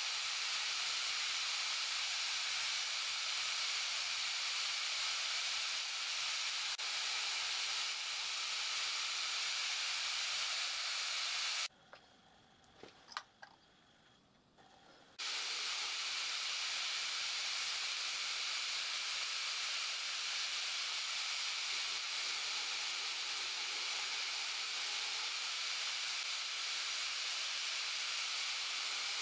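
A router running steadily at high speed, spinning an engraving bit that grinds graduation lines. It stops abruptly about twelve seconds in, a few light clicks follow, and the motor comes back on just as abruptly about three seconds later.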